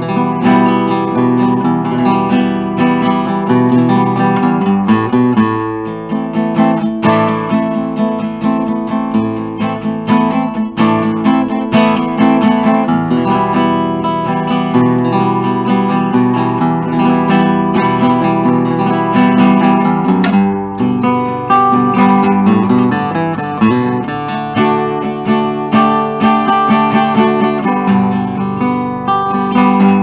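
A 1946 Epiphone Emperor acoustic archtop guitar played unamplified, with chords strummed throughout.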